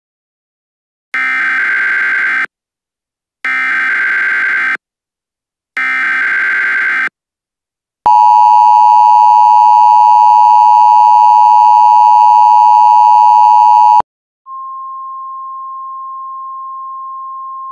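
Emergency Alert System tones. First come three short bursts of warbling SAME header data. Then the loud two-tone attention signal holds for about six seconds, followed by a quieter single steady tone.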